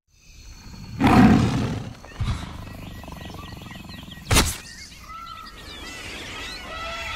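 Jungle ambience: a big cat's roar about a second in, a short sharp noise near the middle, then birds chirping over a steady background hiss.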